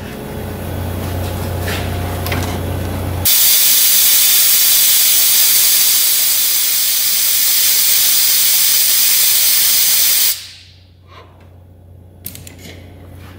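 Compressed-air venturi coolant vacuum tester hissing steadily as it pulls a vacuum on the cooling system for a leak check. The hiss starts suddenly about three seconds in and cuts off about ten seconds in.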